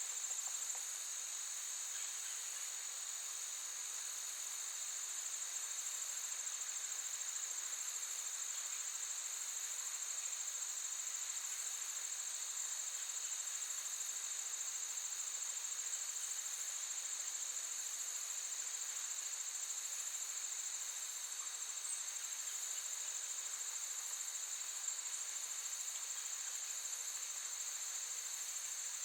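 A steady, high-pitched chorus of crickets chirping in a continuous trill, with a fainter second tone lower in pitch.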